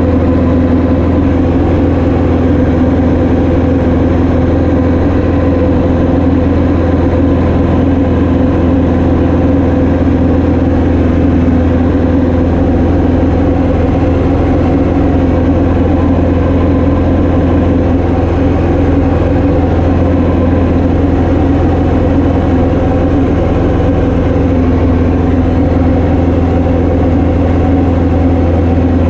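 Light training aircraft's piston engine and propeller running with a loud, steady drone that does not change in pitch or level.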